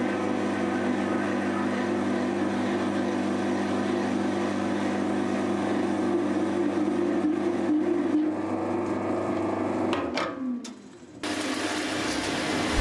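A mini metal lathe running steadily, its motor and gear train giving a constant whine while a tool turns a metal workpiece. About ten seconds in, the pitch falls and the sound dies away as the lathe spins down, then it breaks off suddenly into the lathe running again with a noisier cutting sound.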